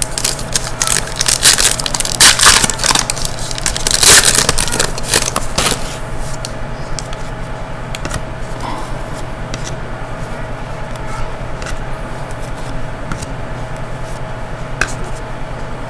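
Crinkling and rustling of trading card packaging being handled, loud and crackly for about the first six seconds, then dying down to a steady background hum with a few faint clicks.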